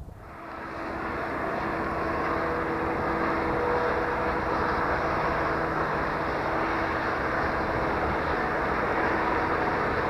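Freight train hauled by two diesel locomotives passing, a steady sound of engines and rolling cars that builds over the first couple of seconds and then holds, with a few faint steady tones in it.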